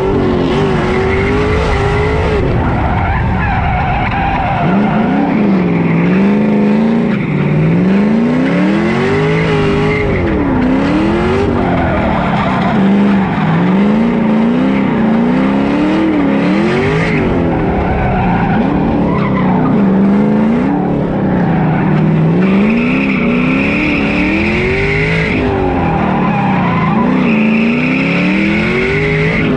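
Drift car's engine revving up and falling back again and again as the car slides, with tyres squealing. The squeals are loudest and longest near the end.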